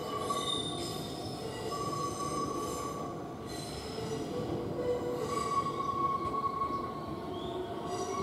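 JR Central 373 series electric train pulling into the station over curved track and points, its wheels squealing in several steady high tones that come and go over the rumble of the running gear.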